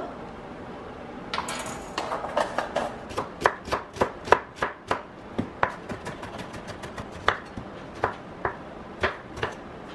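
Kitchen knife chopping onion and then tomato on a wooden cutting board, the blade knocking the board in quick, irregular taps that begin about a second and a half in.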